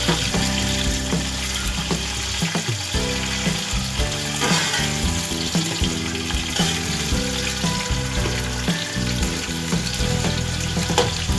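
Sliced onions frying in hot oil in a cooking pot, sizzling steadily, with occasional stirring scrapes. The onions are being fried down toward dark brown.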